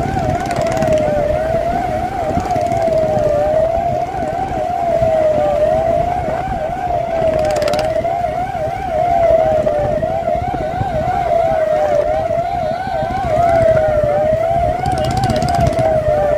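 Police vehicle sirens sounding together: one slow rising-and-falling wail about every two seconds overlapping a fast yelp. Under them is the low rumble of engines and road noise from the moving convoy.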